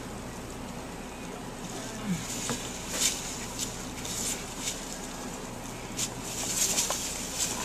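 Dry fallen leaves rustling and crackling in short, irregular bursts as brown bear cubs shuffle and scuffle over the leaf litter, over a steady low hum.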